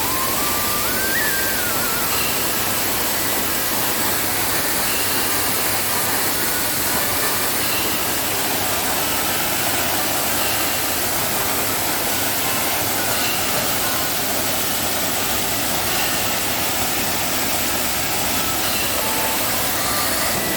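Waterfall in rainy-season flood, water pouring and rushing as a steady, loud, even hiss.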